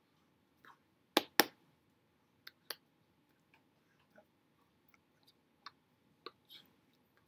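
Hands and mouth of a person signing without voice: two sharp slaps of the hands meeting a little over a second in, then scattered soft clicks and smacks.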